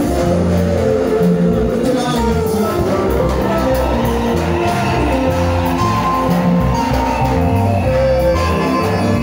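Live gospel choir singing into microphones over an amplified band, with a stepping bass line and guitar underneath, loud and steady throughout.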